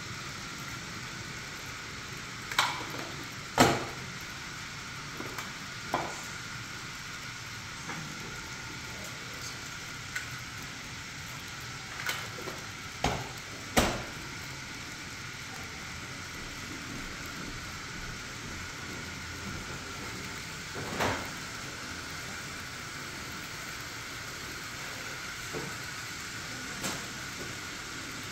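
N scale model freight train running along the layout track: a steady whirring hiss with a faint high whine, broken by a few scattered sharp clicks, the loudest about four and fourteen seconds in.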